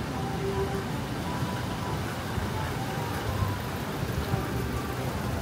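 City street ambience: a steady low rumble of passing traffic with indistinct voices of people nearby.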